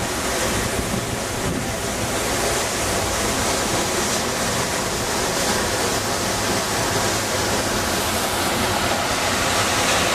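Steady rushing roar of Ponytail Falls in full spring flow, growing slightly louder near the end.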